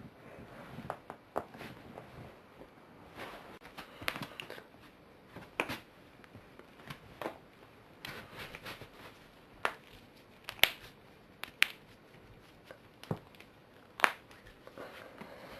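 Joints cracking during neck and back adjustments: a run of many short, sharp pops at uneven intervals, the loudest about ten and a half and fourteen seconds in.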